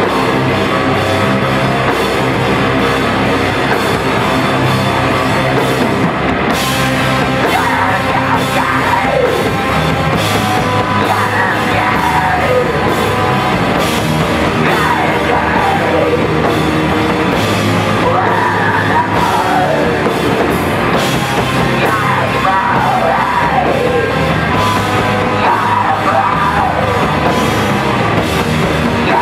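Punk band playing live at full volume: dense drums and amplified instruments, with yelled vocals coming in about seven seconds in and carrying on in phrases.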